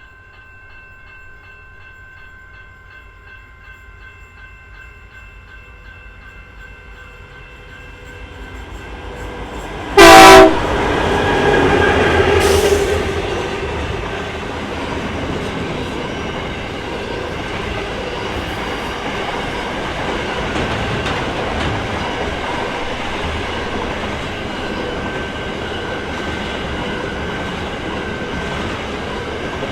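A train approaching with its horn sounding faintly, growing louder. About ten seconds in a very loud, short horn blast sounds at close range, then a second, shorter one. The train then rolls past with a steady rumble and clatter of wheels and wagons.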